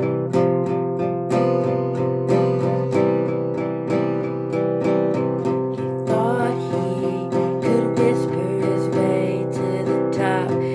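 Music: an acoustic guitar strummed in an even rhythm, about three to four strums a second, under sustained chords. A wavering sung melody joins about halfway through.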